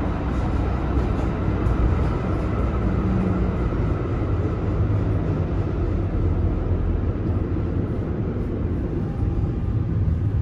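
Tram running, heard from inside the passenger car: a steady low rumble, with a faint high whine over the first half.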